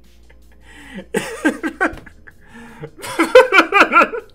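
A man laughing in two bouts, the second, about three seconds in, louder and longer.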